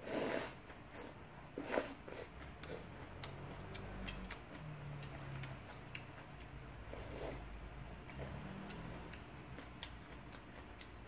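A person eating: three short, noisy mouth sounds (at the start, about two seconds in and about seven seconds in), with many small clicks from chewing and utensils.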